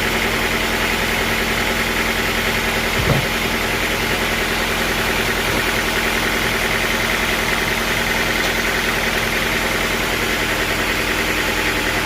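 Sawmill engine running steadily, with one brief knock about three seconds in.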